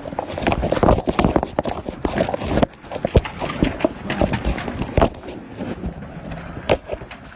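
Close handling noise from a body-carried camera as the wearer moves: a busy, irregular run of knocks, rustles and gear clatter.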